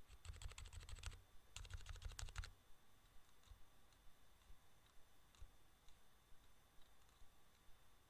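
Two short runs of rapid clicking, each about a second long, then a few scattered faint clicks.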